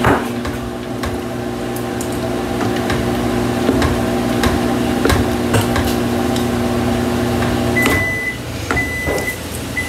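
Microwave oven running with a steady hum that cuts off about eight seconds in. Its end-of-cycle beeps then start, repeating about once a second, signalling that the heating is done.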